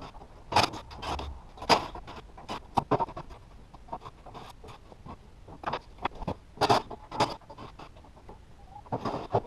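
Wooden shipping crate being pried and knocked apart: a string of loud, irregular sharp knocks and bangs, about a dozen, with short gaps between them.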